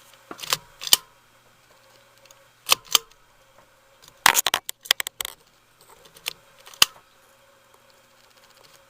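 Irregular clicks and clacks of the ceiling fan's switch housing, wires and parts being handled, with a dense cluster of rattling knocks about four to five seconds in. Under them is a faint steady hum.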